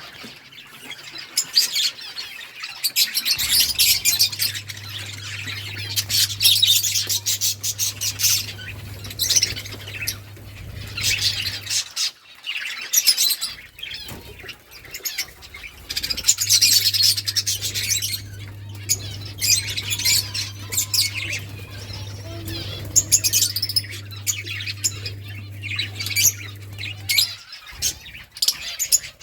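Budgerigars chirping and squawking in a rapid, continuous stream of high chirps. A low steady hum runs beneath them for two long stretches.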